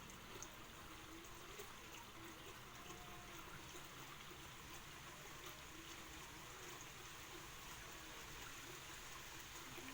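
Faint, steady trickle of water.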